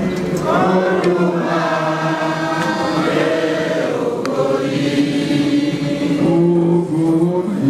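A group of voices chanting together in long held notes.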